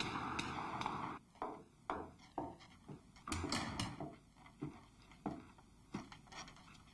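Footsteps in a quiet room: separate short knocks about half a second to a second apart. A steady hiss with faint regular clicks stops abruptly about a second in.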